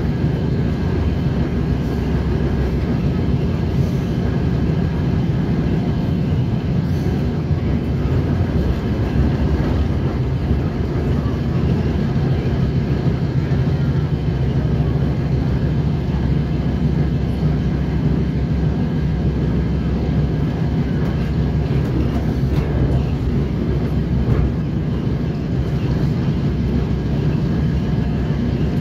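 DR1A diesel multiple unit running at speed, heard from inside the carriage: a steady drone of engine and wheels on the rails.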